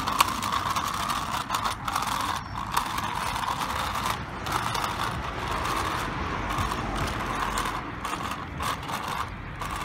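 A toddler's small bicycle with training wheels rolling along a tarmac path, its wheels and stabilisers making a continuous rattling, clicking whir.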